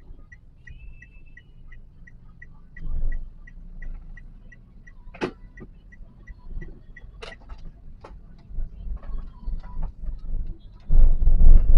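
Inside a moving car, a turn-signal indicator ticks evenly about three times a second over low road and engine rumble. There are two sharp clicks in the middle. Near the end come loud, low rumbling thumps.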